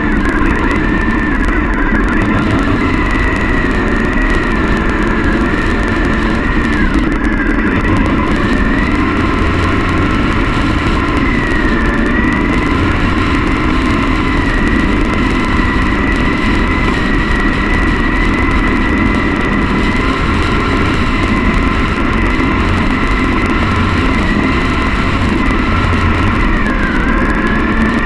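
Triumph Bonneville parallel-twin engine running steadily as the motorcycle cruises along the road, its pitch dipping briefly and recovering a few times.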